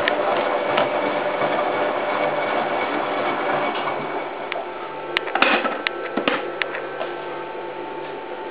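Hoover Time Manager H130E washing machine running through its rinse, the drum turning with a steady churning noise over a low hum. About five seconds in comes a short cluster of clicks and knocks, and the noise then settles quieter.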